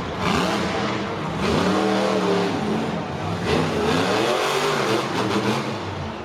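Monster truck engines revving, the pitch climbing and falling again several times over a constant rumble.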